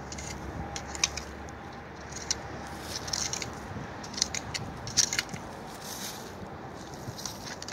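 Shovel blade scraping and pushing gravelly dirt, with scattered short crunches and scrapes as soil and stones are shifted.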